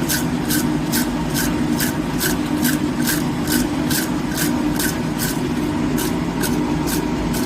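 Steady, evenly paced metalworking strokes at a blacksmith's anvil, a little over two a second, over a constant low mechanical hum.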